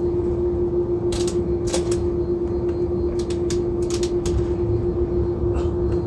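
Steady rumble and hum inside the cabin of an Airbus A330-300 airliner taxiing after landing. Between about one and four and a half seconds in, a run of sharp clicks sounds over it.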